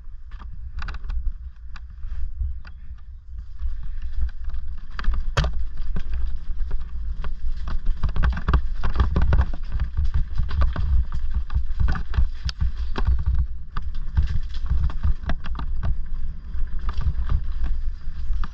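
An e-mountain bike riding over a loose stony track: tyres crunching on stones and the bike rattling, with many sharp knocks over a heavy low rumble. It gets louder about four seconds in.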